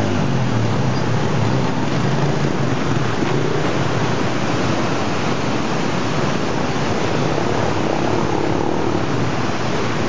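Small step-through motorcycle engines running as a bike is ridden through a fast-flowing stream, the engine drone wavering in pitch over the steady rush of the water.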